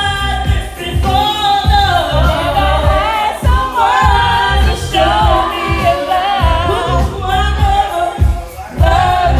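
A karaoke song: a voice singing a melody over a backing track with a steady bass beat.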